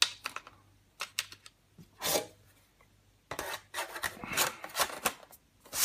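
Light clicks as the opened aluminium MacBook Pro is handled, then a run of scraping and rubbing as its aluminium bottom case is set back on.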